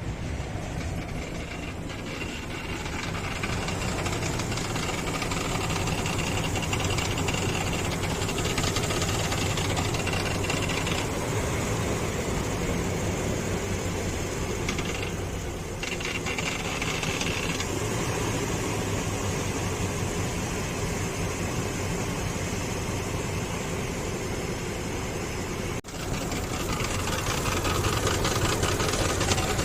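Infiniti QX56's 5.6-litre V8 idling with a loud knocking under the hood. The knock comes from the accessory drive belt's tensioner, which shakes back and forth while the engine runs; with the belt off, the engine runs cleanly.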